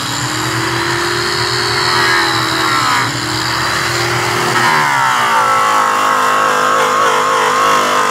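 Makita electric polisher running with its pad on an aluminum truck wheel, giving the rim a finish-stage polish. Its motor whine dips briefly about three seconds in and shifts lower about five seconds in.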